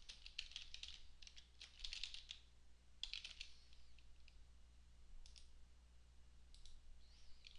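Faint typing on a computer keyboard in short bursts of keystrokes, followed later by a few separate single clicks.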